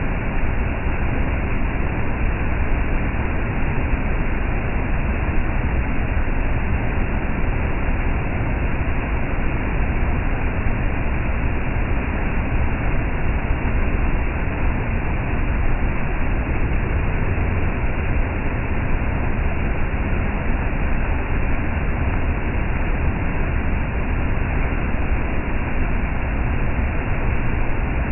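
Small waterfall rushing steadily over a rock ledge into a pool, heard close up from its lip: an even, unbroken roar of churning whitewater.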